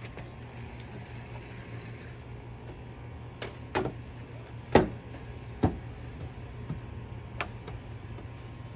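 Knocks and clunks of parts being handled and fitted while the front bumper goes onto a pickup truck: about five short knocks in a few seconds, the loudest around the middle, over a steady low hum.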